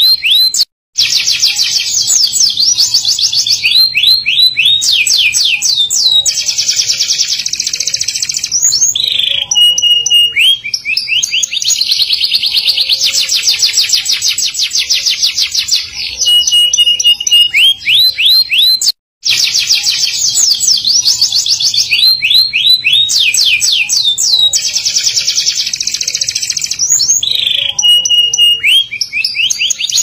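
Domestic canary singing a continuous song of fast rolling trills, rapid rising chirps and short held whistle notes. The song cuts out briefly twice, about a second in and a little past halfway.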